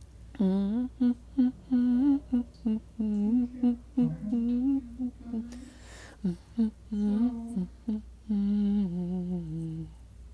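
A voice humming a tune in short, separate notes, the last few held notes stepping down in pitch.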